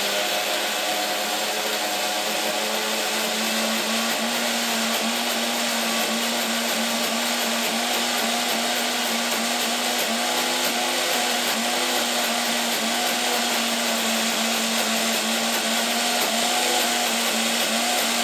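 A steady electric motor whirring, with a constant hum over a loud hiss, its pitch wavering slightly now and then.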